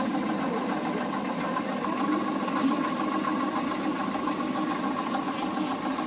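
Steady mechanical drone of running oil-mill machinery, with faint voices behind it.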